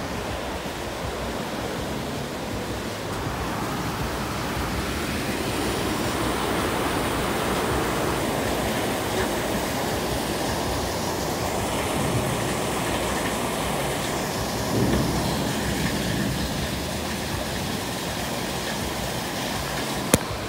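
Heavy rain and strong wind in a night storm: a steady rushing noise, somewhat louder in the middle, with a sharp click near the end.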